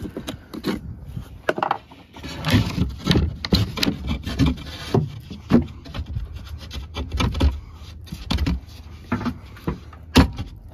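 Wood knocking and scraping in irregular bursts as a piece of deck plywood is trimmed by hand and tried in place.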